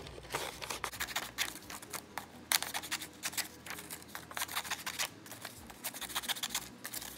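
Scissors snipping slits into a folded sheet of black paper, a run of short, irregular cuts with paper rustling as the sheet is handled and turned.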